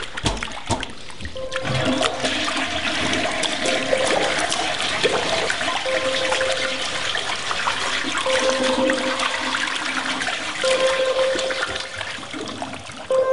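Toilet flushing: a long, steady rush of water that swells about a second and a half in and keeps going.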